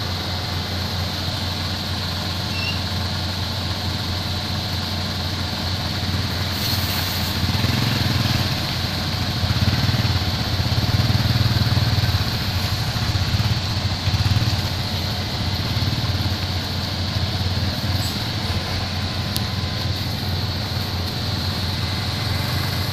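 Heavy truck's diesel engine running steadily, with a small motorcycle engine coming close and passing, loudest about ten to fourteen seconds in.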